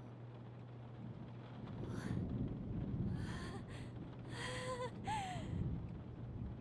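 Breathy gasps and sighs from a voice, several in a row from about two seconds in, the last ending in a short falling whimper, over a low steady hum.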